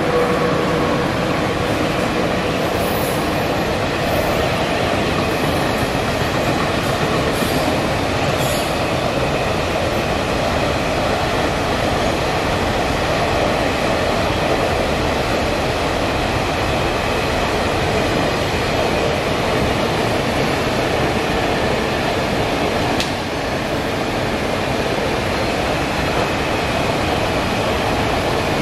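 Freight train passing at trackside: an HXD1C electric locomotive goes by at the start, then a long string of open freight wagons rolls past, their wheels on the rails making a steady, unbroken noise.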